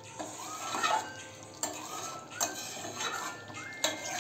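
A spatula scraping and stirring thick potato curry in a metal kadai. The strokes are rhythmic, about every three-quarters of a second, and each carries a short rising squeak of the blade on the pan.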